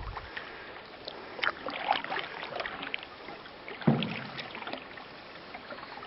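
Canoe being paddled: faint water swishing and drips with small scattered clicks, and a single knock about four seconds in.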